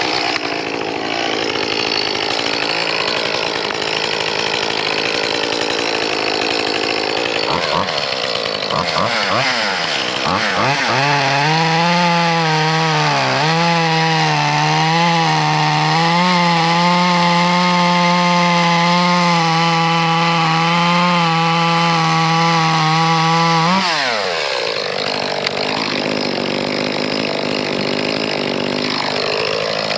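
Small one-handed two-stroke chainsaw running. It runs unevenly at low speed at first, revs up about eight seconds in, and is held at high speed with a few brief dips for about twelve seconds. It then drops back to a low run and starts to rev again near the end.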